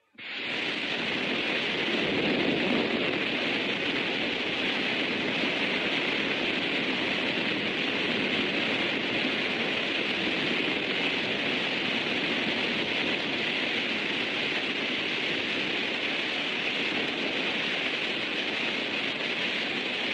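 Steady hiss of gas rushing into an air mattress, starting suddenly and running on without a break as the mattress swells.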